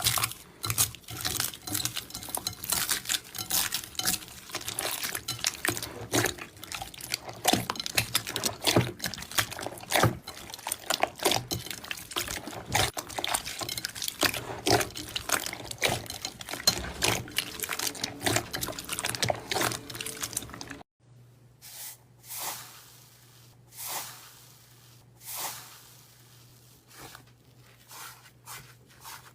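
Slime being squeezed and poked by hand: dense wet clicking and crackling, then after a sudden cut about twenty seconds in, slower separate squelches over a low steady hum.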